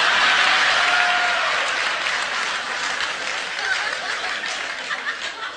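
Live audience applauding, loudest at the start and gradually dying down.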